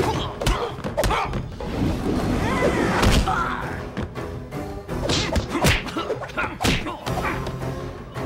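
Film fight sound effects: punches and kicks land as a string of sharp thuds and whacks, some in quick pairs, over dramatic soundtrack music.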